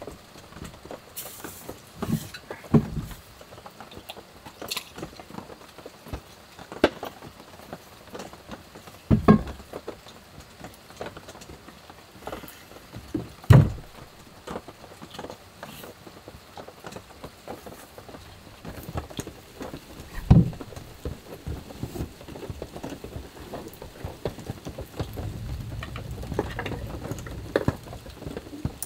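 Rain pattering steadily on the roof of a small truck camper, heard from inside. Every few seconds there is a sharp knock or thump, the loudest about a third of the way in, at the middle and two-thirds of the way in. Near the end there is a low rumbling stretch.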